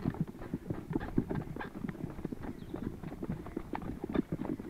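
Footsteps of several people hurrying together on a hard path: a quick, irregular patter of steps.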